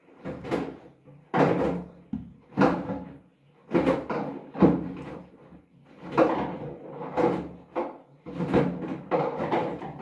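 Hoover front-loading washing machine in its wash cycle: the drum turns with a low motor hum while a wet bath mat and mop heads tumble, each turn bringing a surge of sloshing water and soft thuds, about once a second.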